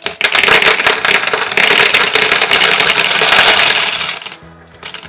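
A stream of gumballs pouring out of a plastic cube and clattering into a plastic tub, a dense, loud rattle that dies away after about four seconds, with a few last balls clicking near the end.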